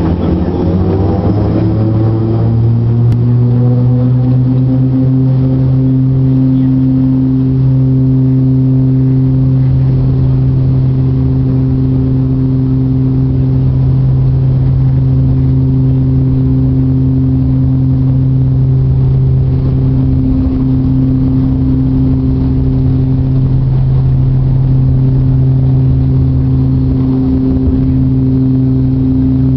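Dornier 328-110's Pratt & Whitney Canada PW119 turboprop engines and propellers, heard from inside the cabin beside the propeller, at takeoff power for the takeoff roll. A loud, steady propeller drone with a few steady tones above it rises in pitch over the first couple of seconds as power comes up, then holds steady.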